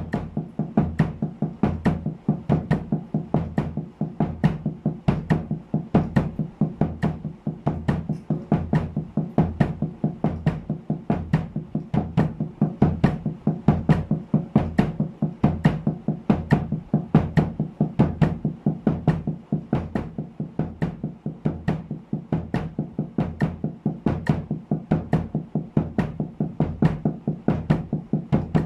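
Snare drum with a towel draped over its head, played with wooden sticks in a steady, even sixteenth-note double-stroke pattern at 70 bpm, with bass drum kicks on the last two sixteenths of each beat.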